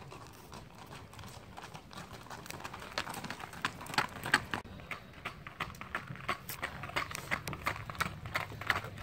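Hoofbeats of two horses walking on a gravel drive, an irregular run of sharp clicks and crunches that grows louder after a few seconds.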